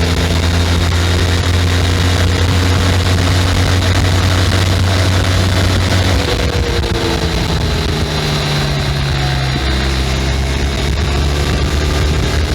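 Benelli 502C's 500 cc parallel-twin engine running through its stock exhaust, holding a steady note, dropping in pitch about halfway through, then rising again near the end.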